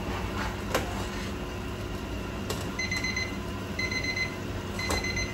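An electronic beeper sounding about once a second, each beep about half a second long, starting about halfway through, over a steady hum. A few metal clinks of a wire spider strainer against the pot.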